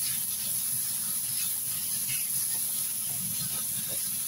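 Thin strips of meat sizzling steadily in a hot frying pan, with a constant hiss and faint small crackles.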